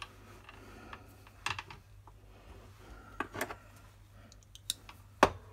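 A few light, sharp clicks and taps, scattered a second or two apart, from small metal parts being handled: a hand-turned pin vise clamped in a bench vise, with steel guitar-string wire being fitted to it.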